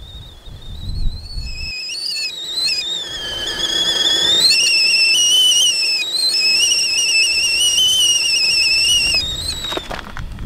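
Stainless steel stovetop kettle whistling at the boil. The warbling whistle builds, climbs in pitch about four seconds in, holds, and cuts off about nine seconds in, followed by a few sharp clicks.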